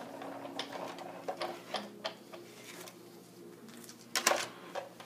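Sizzix Big Shot die-cutting machine hand-cranked, its plates rolling back through the rollers with scattered clicks and creaks, and a louder clatter about four seconds in as the plates come free.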